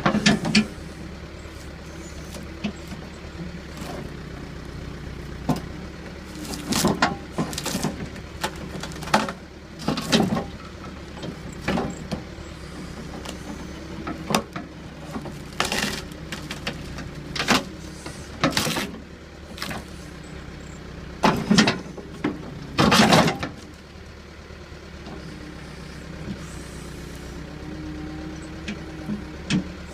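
Backhoe engine running steadily, with a dozen or so sharp knocks and clunks scattered through as it works, several of them loud.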